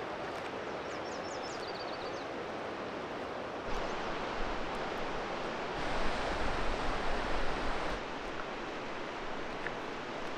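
Rogue River rapids rushing in a steady roar of white water, louder through the middle of the stretch. About a second in, a bird gives a quick run of high chirps.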